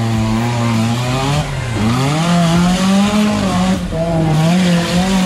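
Off-road 4x4's engine revving hard as it powers through a rocky river ford. Its pitch drops about two seconds in and climbs again, and water hisses and splashes around the vehicle, loudest about three to four seconds in.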